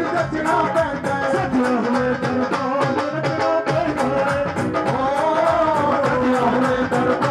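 Live Punjabi-Hindi devotional jagran music: a melody over a fast, steady drum beat, played loud for dancing.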